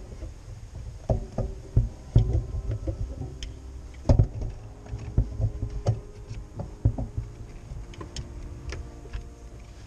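Irregular knocks, thumps and clicks of an old, brittle engine wiring harness and its plastic parts being tugged and worked loose in a car's engine bay, bumping against the engine. The heaviest knocks come in clusters about a second in, around four seconds in, and between five and seven seconds.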